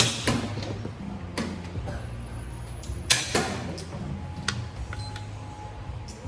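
Sharp clacks of play at a xiangqi board, with pieces set down and a chess clock pressed. The loudest comes about halfway through, over a steady low hum.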